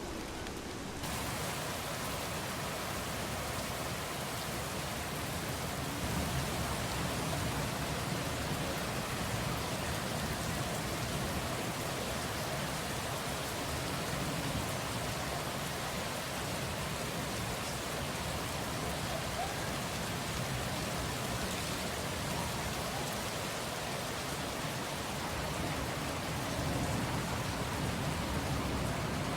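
Steady rain falling, an even hiss that turns brighter about a second in.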